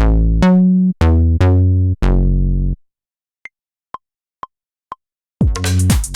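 Native Instruments Monark synth bass played note by note, five or six held notes whose brightness fades as each one sounds. After a pause come four metronome count-in clicks, the first higher than the other three, and then the house drum pattern and bass line start playing together near the end.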